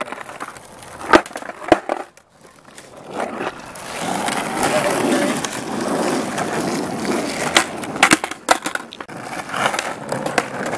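Skateboard wheels rolling on wet asphalt, with sharp clacks of the board popping and landing during flip-trick attempts. A few clacks come about a second in, steady rolling follows from about four seconds, and a quick cluster of clacks comes around eight seconds.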